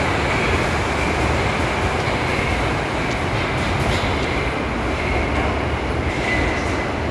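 Moscow metro train of the 81-765 'Moskva' type running along the station platform: a loud, steady rumble with a high wavering whine above it.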